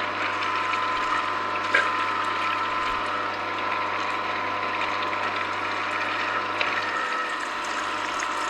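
Angel twin-gear juicer running, its stainless steel gears crushing oranges pressed in with a wooden pusher: a steady mechanical hum with a few faint clicks.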